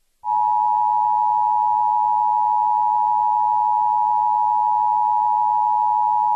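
Emergency Alert System attention signal: a loud, steady two-tone alert tone (853 Hz and 960 Hz sounded together) that starts a moment in and cuts off suddenly near the end. It announces a National Weather Service severe thunderstorm watch.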